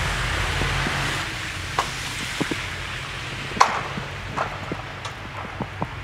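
Wind rumbling on the microphone for about the first second. Then a string of irregular light knocks and crunches, roughly two a second, the loudest about halfway through.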